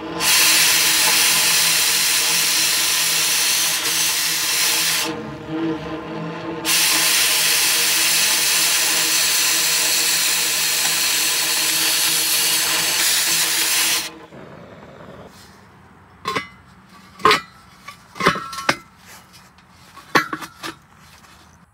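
Oxy-fuel cutting torch cutting through steel pipe with a loud, steady hiss, which drops back for a second or two about five seconds in and then resumes. The jet shuts off about fourteen seconds in. Several light metal knocks follow as a square tube is fitted into the cut hole.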